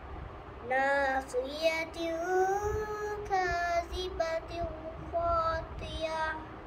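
A young girl reciting the Quran in Arabic in a melodic chant, drawing out long held notes that glide up and down; she begins a new phrase after a short breath pause about a second in.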